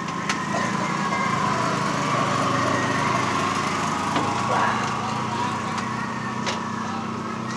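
A small engine running steadily, with an even low hum and a higher whine above it.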